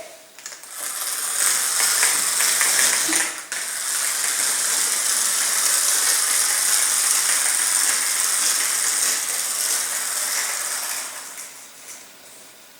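Clockwork motor of a wind-up toy mouse running across the floor, a steady high gear whir and rattle. It breaks off briefly about three and a half seconds in, then fades away near the end as the spring runs down.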